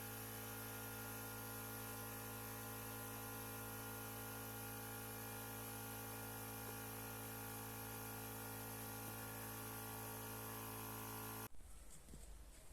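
Steady low electrical hum with a faint hiss, unchanging, that cuts off abruptly near the end.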